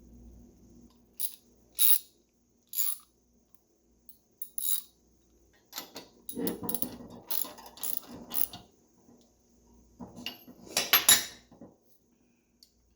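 Metal parts of a Buckeye three-chime steam whistle being handled and fitted together by hand. First come a few separate sharp clinks, then a spell of rattling clatter, and the loudest clatter about eleven seconds in.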